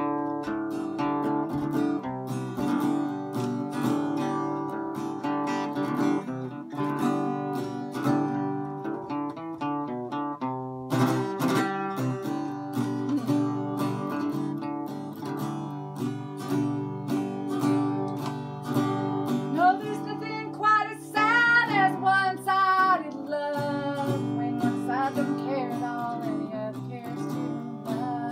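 Acoustic guitar strummed in a bluegrass-style song, a steady run of chords with no lyrics. About twenty seconds in, a wavering wordless voice rises over the guitar for a few seconds.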